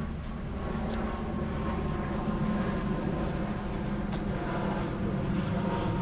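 A steady mechanical hum with a low rumble underneath, and two faint clicks about one and four seconds in.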